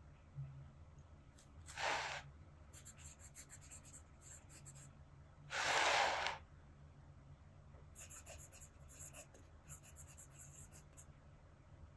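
Fountain pen with a double broad nib writing cursive on paper: faint, intermittent scratching of the nib as the strokes are made. Two short, louder soft whooshes of noise come about two seconds and six seconds in.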